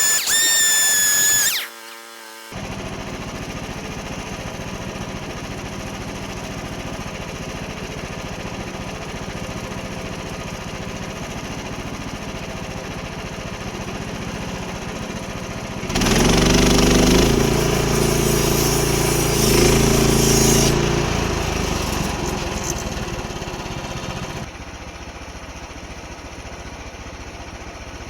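Small gasoline engine of a portable band sawmill running steadily, getting louder for about five seconds past the middle as it works under load, then settling to a quieter run near the end.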